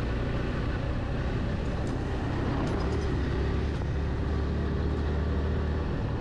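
Motorcycle engine running steadily under way, a continuous low drone mixed with road and wind noise.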